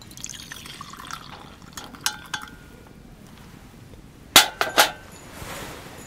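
A hot drink poured from a small metal pan into a glass mug, a trickling splash, with light ringing clinks of metal against glass. A few seconds in come three sharp clinks, the loudest sounds, as metal and glass knock on the metal mesh table.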